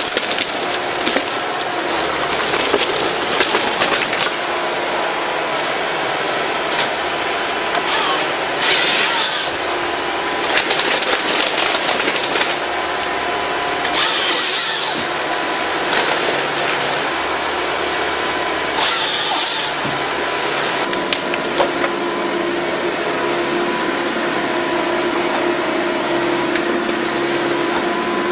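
Forestry harvester at work: its engine and hydraulics run steadily under scattered clicking and cracking of wood as the head handles the trees. Three short high-pitched bursts, each about a second long, come from the harvester head's saw cutting through trunks.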